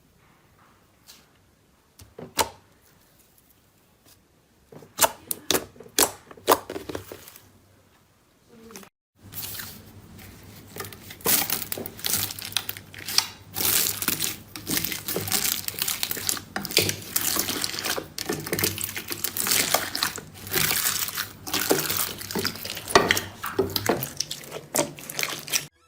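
Slime being handled by hand, giving sticky crackling and popping sounds: a few scattered pops at first, then, after a brief silence about nine seconds in, a dense, continuous run of crackles.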